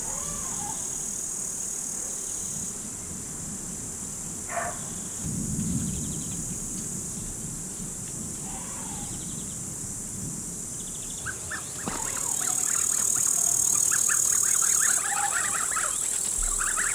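Outdoor summer ambience of a steady high chirring of insects, with a few short bird calls. From about eleven seconds in, a flock of domestic geese gabbles in quick short calls and the insect chirring grows louder.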